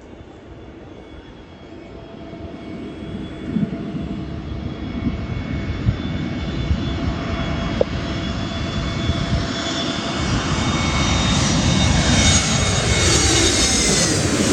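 Jet airliner passing low overhead, its engines' rumble and steady whine growing steadily louder to a peak near the end, where the whine starts to drop in pitch as it goes by.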